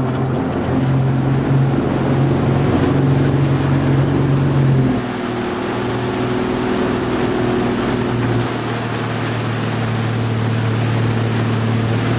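Motorboat engine running steadily at speed while towing a wakeboarder, over the rush of wind and churning wake water. About five seconds in the engine note drops and the overall level falls slightly, then it holds steady.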